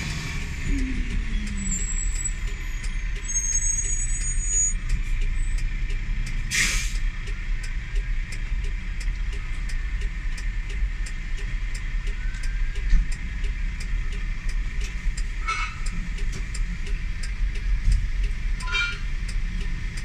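Steady rumble and hiss from a burning van and idling traffic. A sharp crack about six and a half seconds in, and two shorter pops later on.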